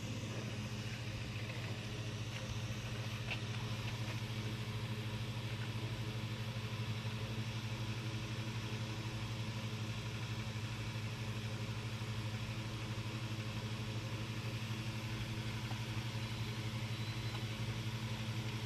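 Steady low mechanical hum, even and unchanging, with a faint click about three seconds in.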